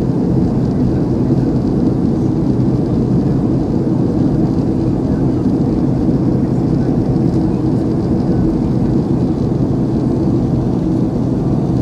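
Steady roar of a Boeing 757-232's jet engines and rushing air heard inside the cabin as the airliner climbs out after takeoff, with a low steady hum beneath it.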